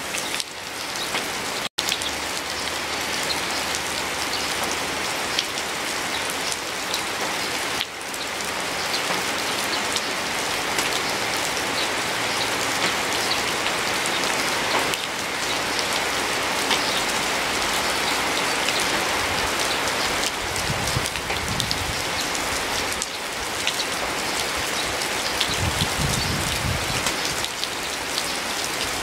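Steady rain falling on garden foliage and hard surfaces, an even hiss full of many separate drop ticks. The sound cuts out for an instant about two seconds in.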